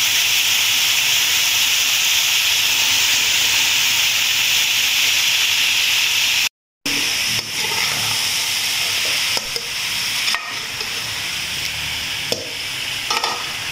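Potatoes and cauliflower sizzling as they fry in a metal pan, a steady hiss. After a short break about six and a half seconds in, the sizzle is quieter, and a metal spatula clicks and scrapes against the pan a few times as the vegetables are stirred.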